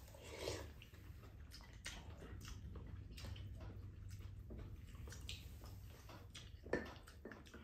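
Faint eating sounds: chewing, and spoons now and then clinking against bowls, with one sharper clink near the end, over a low steady hum.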